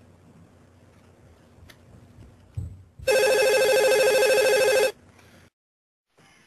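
A telephone ringing once: a loud, warbling electronic ring lasting about two seconds, starting about three seconds in. Just before it there is a short low thump.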